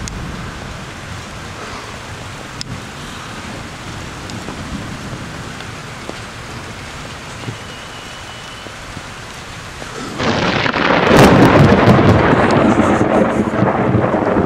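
Steady rain, then about ten seconds in a loud clap of thunder breaks in and rumbles on, slowly fading.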